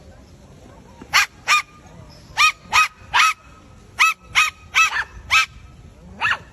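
A run of about ten short, high-pitched barks in quick groups of two to four.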